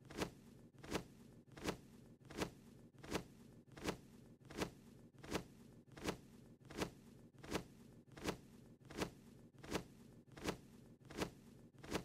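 Cartoon bird's wing-flap sound effect: a short swish repeating evenly about every three-quarters of a second, over a faint steady low hum.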